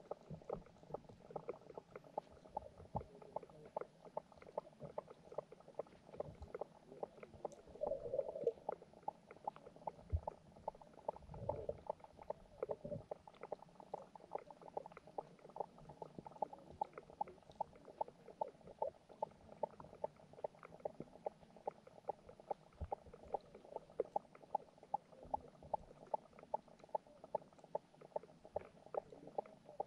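Underwater pond sound picked up by a submerged camera: a steady hum with rapid, evenly spaced ticking, about two to three ticks a second, and two brief bubbly swells in the first half.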